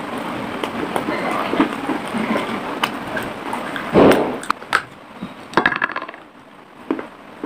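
Close-miked crunching and chewing of dry clay from a small clay cup (kulhad): grainy crackling, a loud crunch about four seconds in, then a few scattered sharp crunches.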